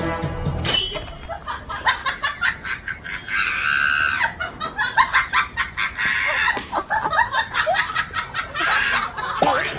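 Rooster squawking and clucking in many short, sharp calls, with louder drawn-out squawks around four seconds in and again near the end. Music stops about a second in.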